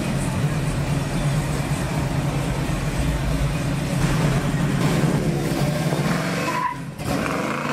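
Chevrolet Chevelle SS's engine running with a steady low rumble, its pitch wavering up and down about four to six seconds in. The sound dips briefly near the end.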